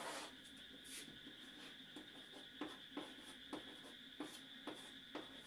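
Chalk writing on a chalkboard: a series of faint, short scratches and taps as the strokes are drawn, irregular in spacing.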